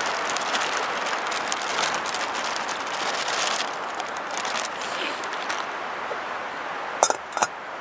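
Plastic bag crinkling as frozen broccoli, Brussels sprouts and peas are tipped into a steel bowl, the pieces pattering in for about three and a half seconds. Near the end come two sharp clinks of a steel pot lid being handled.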